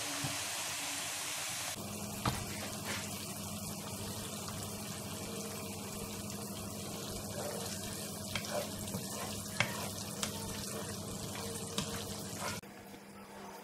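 Grated carrot frying gently in olive oil in a pan, a steady sizzle, with a few light clicks of a spatula against the pan.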